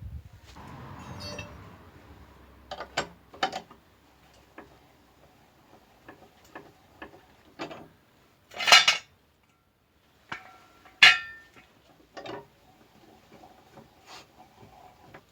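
Metal clanks and clinks of a car jack and hand tools being handled as the car is let down off the jack. There is a low rumble in the first second or so, a few scattered knocks, and two loud sharp clanks about nine and eleven seconds in.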